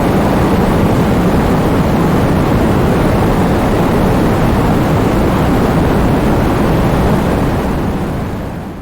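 Heavy rain with strong wind: a loud, steady, dense noise that fades out near the end.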